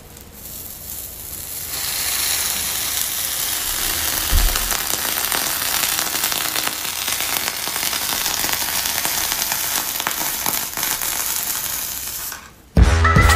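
A hot flat-iron hair straightener sizzling against a wet tongue: a steady crackling hiss. It builds up over the first couple of seconds and stops abruptly near the end.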